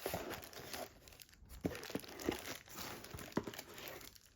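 Packaging being handled, crinkling and rustling, with a few sharp crackles.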